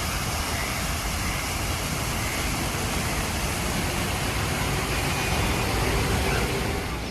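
Steady city traffic noise: an even rush of passing vehicles, with a faint whine or two about five seconds in.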